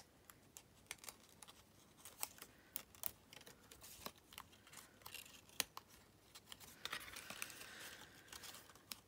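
Die-cut cardstock shape being worked free of its sheet by hand: faint scattered paper clicks and small tearing sounds, turning to a steadier paper rustle about two seconds before the end.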